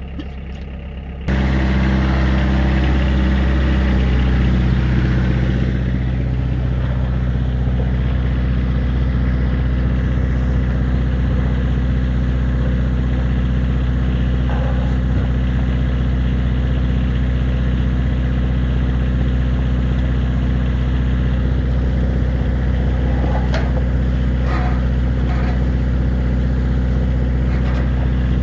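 Drain-jetting machine's engine and high-pressure pump coming up to full running about a second in, then running steadily while the jet hose works down a blocked sewer line.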